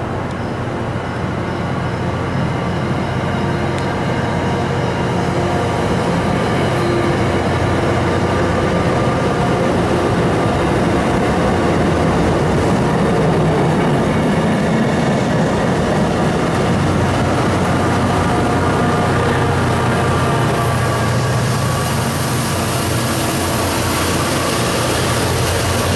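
MBTA commuter rail train departing, coaches rolling past with the diesel locomotive pushing at the rear: a steady low engine and rail rumble that grows slowly louder as the locomotive comes by.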